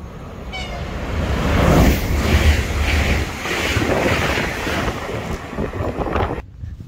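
České dráhy InterPanter electric multiple unit passing close at speed: rushing wheel and air noise with a rhythmic clatter about twice a second, loudest about two seconds in. The sound cuts off abruptly near the end.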